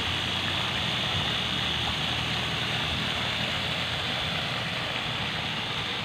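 Paddlewheel aerator running steadily on a fish pond: a constant motor hum with the wheel churning and splashing the water, keeping the pond rich in oxygen.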